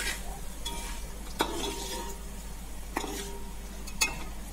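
Steel slotted spoon scraping and stirring spices in a steel pot, with a light sizzle of mustard seeds and curry leaves frying in oil as they are roasted until they crackle. Sharp clinks of the spoon on the pot about one and a half, three and four seconds in.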